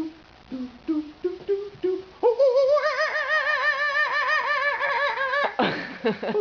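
A man imitating a monkey with his voice: a run of short low hoots, then a long high-pitched call whose pitch wavers rapidly, cut off by a short breathy burst.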